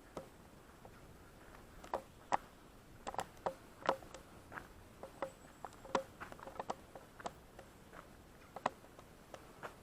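Scattered light taps and clicks at irregular intervals, about one or two a second, over a faint hiss.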